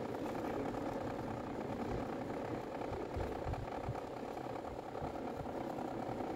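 A motor running steadily: a continuous mechanical drone that holds level throughout.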